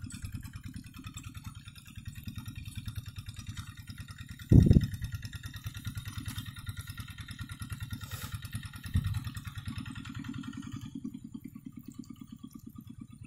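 The single-cylinder Yanmar diesel engine of a Quick two-wheel hand tractor runs steadily under load while ploughing a wet rice paddy, with a rapid, even beat. A brief low thud about four and a half seconds in is the loudest moment, and a smaller one comes about nine seconds in.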